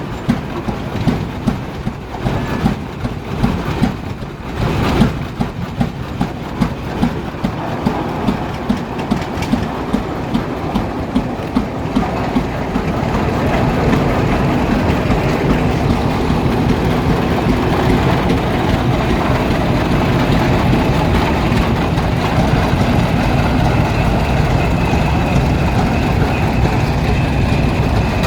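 Antique tractor engines running. An even, slow popping exhaust beat of about two a second gives way, about halfway through, to a louder, steadier engine sound.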